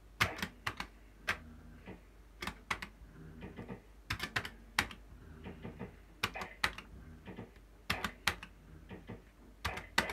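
QPS Yabba Dabba Dough fruit machine being played spin after spin: a cluster of two or three sharp clicks from the start button and the reels stopping, repeating about every two seconds, with faint machine tones between.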